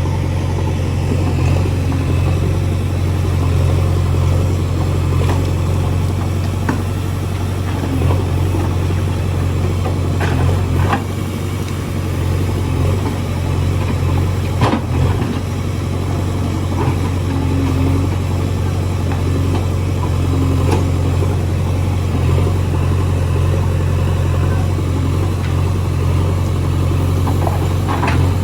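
JCB 3DX backhoe loader's diesel engine running steadily, with a few sharp knocks from the machine's work now and then.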